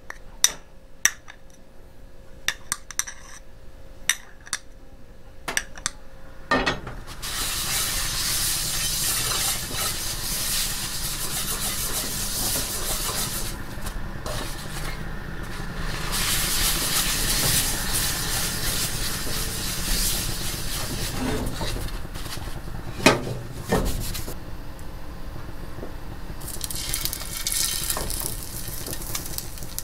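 A few light clicks and taps of a utensil on cookware, then food sizzling steadily as it fries in an oiled pan, starting about seven seconds in, with a couple of sharp clacks about two-thirds of the way through.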